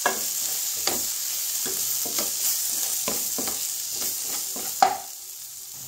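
Wooden spatula stirring and scraping onion-tomato masala in a nonstick kadai over a steady sizzle, with irregular knocks against the pan: ground spices frying until their raw smell goes. A sharper knock comes near the end, and the stirring stops for the last second, leaving a quieter sizzle.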